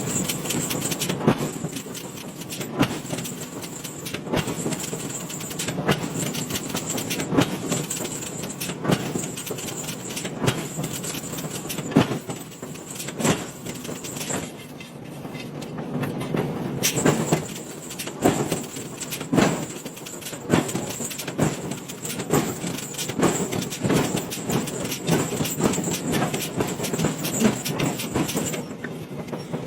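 Metal forging: repeated hammer blows at irregular intervals over steady workshop noise, with a constant high-pitched whine that stops briefly about halfway through.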